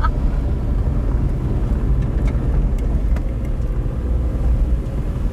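Small car with a 1-litre engine climbing a steep gravel mountain road: steady engine and tyre rumble with a faint steady engine tone, the engine labouring on the grade.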